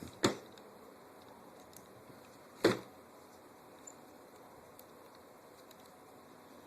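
Two sharp knocks of rifle parts being handled, about two and a half seconds apart.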